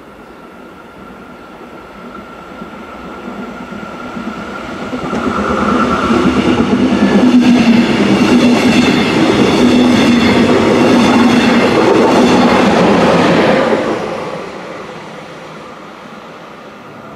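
Electric double-deck regional train passing close by at speed: it swells as it approaches, runs loud for about eight seconds of wheels on rail with a steady hum, then fades quickly away.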